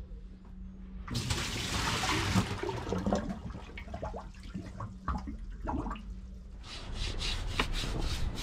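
Water poured into an empty fibreglass cockpit locker, splashing and then gurgling as it runs down the drain hole to check that the locker drains. From about two-thirds of the way through, a quick even rhythm of scrubbing strokes: a brush on a teak deck.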